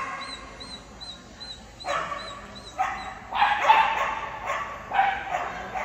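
A black poodle barking in short, sharp barks. The barks come more closely together about three seconds in.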